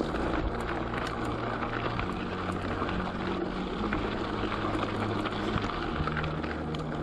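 Bicycle riding along an abandoned railway bed, heard from a bike-mounted camera: a steady rumble and hiss of tyres and wind with scattered small rattles and clicks.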